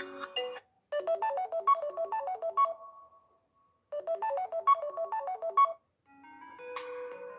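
Samsung Galaxy A10s ringtones playing from the phone's speaker. A short melody of quick repeated notes rings twice, each time fading out, then a different ringtone with longer held notes begins near the end.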